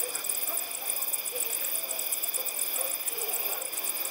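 Night insect chorus: a steady, high-pitched chirring that pulses evenly several times a second, with a few faint low calls in the background.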